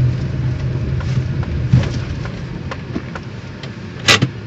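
Engine and road noise heard from inside a moving Suzuki hatchback: a steady low hum that slowly fades, with scattered light clicks and rattles and one sharp knock about four seconds in.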